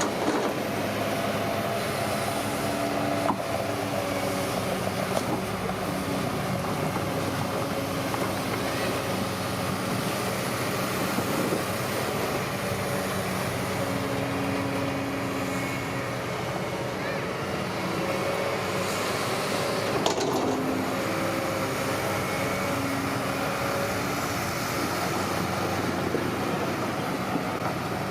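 Bulldozer's diesel engine running steadily under work, with a sharp knock a few seconds in and another about two-thirds of the way through.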